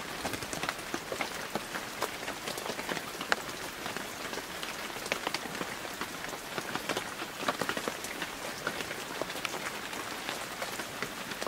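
Steady rain falling: a continuous hiss with many separate raindrop ticks at random.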